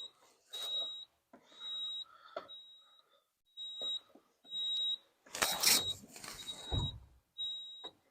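Caterpillar 287B skid steer's in-cab warning beeper sounding with the key on, a high single-tone beep repeating about once a second. It is the sign that the machine won't crank until the seat bar is lowered. A clatter and low rumble breaks in about five and a half seconds in.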